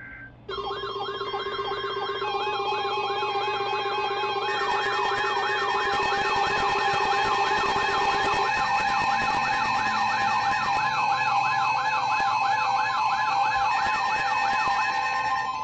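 Emergency alert tones from weather radio and FM broadcast receivers, several sounding at once: steady alert tones with warbling, siren-like alarms layered over them. They start abruptly about half a second in and signal the severe thunderstorm warning that follows.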